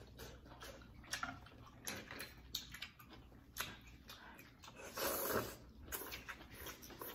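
Eating noodle soup: slurping and chewing with scattered small clicks. About five seconds in, a person blows their nose into a tissue, the loudest sound, lasting about half a second.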